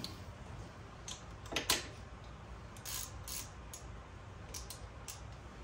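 A few light metallic clinks and taps from hand tools and small metal parts being handled, with a louder pair of knocks about a second and a half in.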